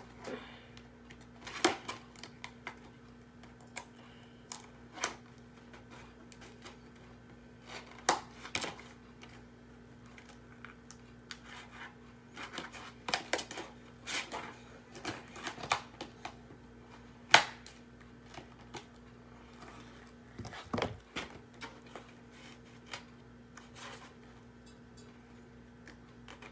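A cardboard toy box and its packaging being worked open by hand: scattered sharp clicks, snips and short rustles at irregular intervals, the loudest a sharp click about two-thirds of the way through. A steady low hum runs underneath.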